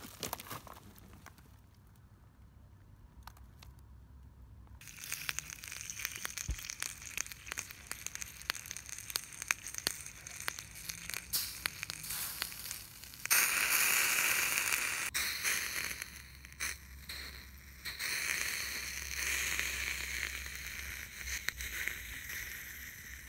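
Crackling and clicking handling noise around an RC crawler's overheated, smoking Mabuchi 540 brushed motor. About 13 seconds in, a louder steady hiss starts suddenly as water is poured over the motor to cool it.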